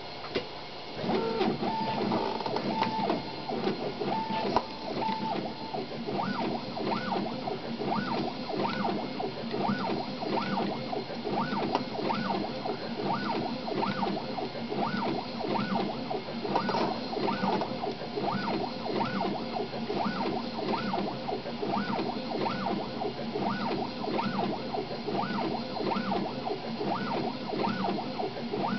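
Stepper motors of a RepRap-style 3D printer driving the print head and bed at very high speed, about 300 mm/s, starting about a second in. First a few steady stepped tones, then a whine that rises and falls with each move, about three times every two seconds, as the head traces the square outline of each layer.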